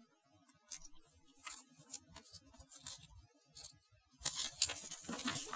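Soft paper handling of a kit's instruction manual: faint scattered taps and rustles, then a louder rustle of paper from about four seconds in as the booklet is opened.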